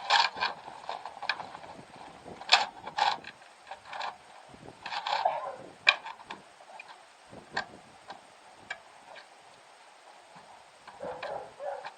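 Irregular knocks, clicks and short scuffs of wooden boards and hardware being handled while a bird feeding station is taken apart, some sharp and loud, others faint, with uneven pauses between them.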